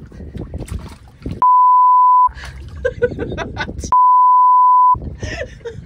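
Two edited-in censor bleeps: a steady, loud, high beep about a second long, sounding twice about a second and a half apart, with all other sound cut out beneath it, masking spoken words.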